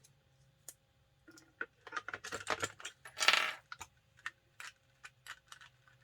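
Sharp plastic clicks and taps from a handheld network cable tester being handled as its weak battery is swapped for a fresh one. The clicks bunch up about two seconds in, followed by a short scraping rustle.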